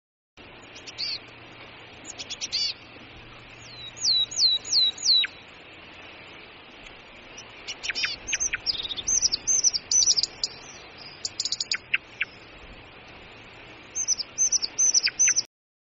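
Hazel dormouse calling: clusters of high-pitched chirps and squeaks over a steady hiss, including runs of four quick falling chirps. The clusters come every few seconds and grow busier near the middle.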